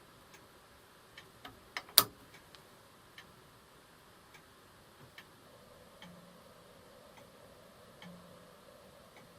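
Restored 1958 Tudor Prince mechanical watch ticking faintly, with one much louder sharp click about two seconds in.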